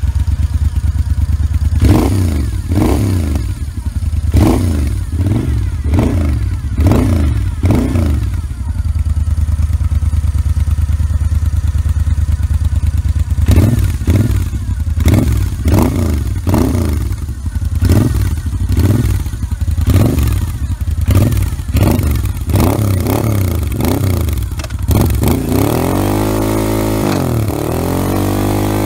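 Moto Guzzi V7 III Racer's 744 cc air-cooled V-twin running, revved in quick throttle blips about one a second in two runs with idling between them, then settling back to a steady idle near the end.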